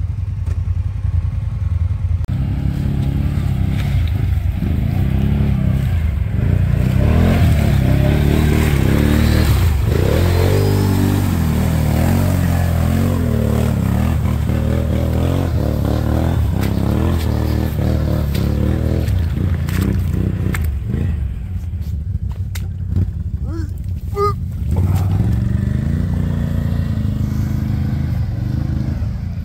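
1000 cc ATV engine revving up and down over and over in mud, loudest about a third of the way in, with a few clattering knocks about two-thirds through.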